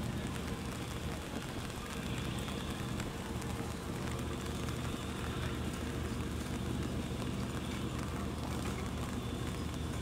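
Large passenger ship's diesel engines droning steadily at a low pitch as the vessel moves slowly through the harbour, under a constant hiss of wind and water.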